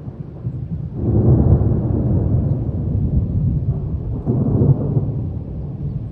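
Rolling thunder: a long, deep rumble that builds about a second in and swells again about four seconds in.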